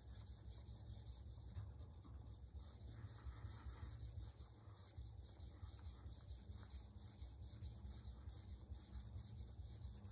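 Steel Santoku knife blade scrubbed back and forth on a dry 100-micron diamond resin sharpening stone, a faint abrasive rasping in quick repeated strokes. The stroking thins the blade and grinds out a stain.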